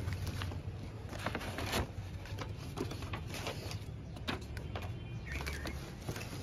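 Paper packing rustling and crinkling as it is pulled out of a cardboard box, with irregular crackles and a few sharp ticks.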